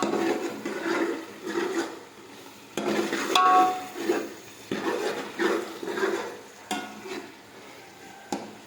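A metal ladle stirring and scraping meat masala in a large metal cooking pot, in irregular strokes with a few short metallic rings, the loudest about three and a half seconds in.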